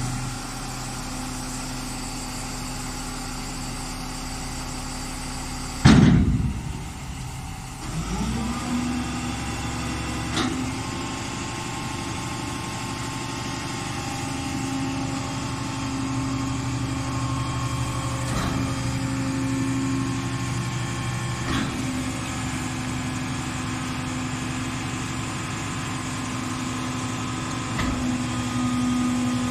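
Compactor garbage truck engine and hydraulic system running steadily while the tailgate and bin-tipping arms are worked: a steady engine hum with held tones. A loud clunk comes about six seconds in, the engine note dips and climbs back up, and a few sharp metallic knocks follow later as the mechanism moves.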